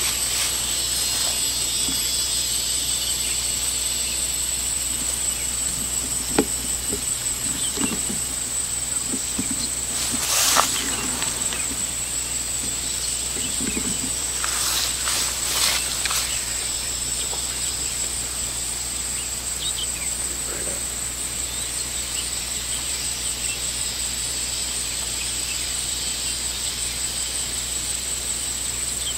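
Steady high-pitched insect chorus with a fine, even pulsing, joined by a few short knocks and rustles, the loudest about ten seconds in.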